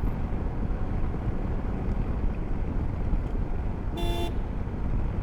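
Steady wind and road rumble on a chin-mounted mic from a motorcycle riding at about 60–70 km/h. A short, single vehicle-horn toot sounds about four seconds in.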